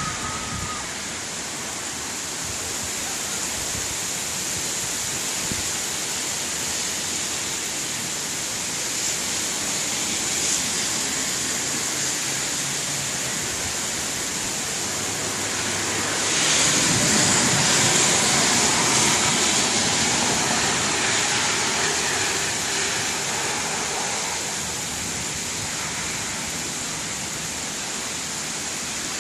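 Heavy rain and gusting wind in a thunderstorm, a steady rushing hiss that swells louder for several seconds a little past halfway through.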